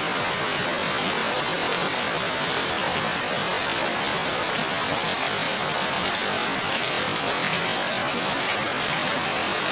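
Heavy rain falling steadily on garden foliage and a road, an even hiss with no breaks.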